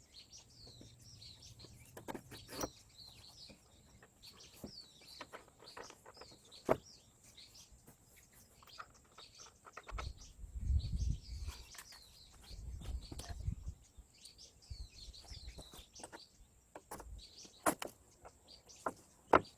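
Small birds chirping repeatedly, many short calls. A few sharp knocks or clicks stand out, the loudest about a third of the way in and again near the end, and a low rumble comes in around the middle.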